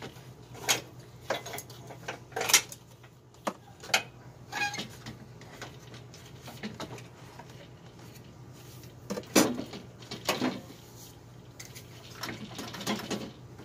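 Irregular knocks, clicks and rattles of a replacement radiator with plastic end tanks being forced into a tight spot in an engine bay, plastic and metal parts bumping together. The loudest clunks come about two and a half seconds in and again about nine seconds in, over a faint steady hum.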